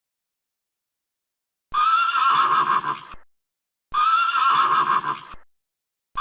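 Horse neighing: the same whinny twice, about two seconds apart, each call about a second and a half long with a high wavering opening that trails off, and a third beginning at the very end.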